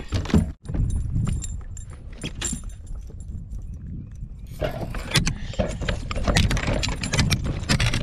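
Rattling, clicking and knocking in a kayak as a freshly caught smallmouth bass with a lure still in its mouth is handled, over a low rumble; the clatter thickens about halfway through.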